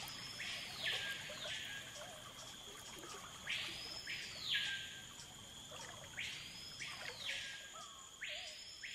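Tropical forest ambience: a buzzy animal call that sweeps up in pitch and back down, repeated about four times, each about a second long, over a faint steady high hum.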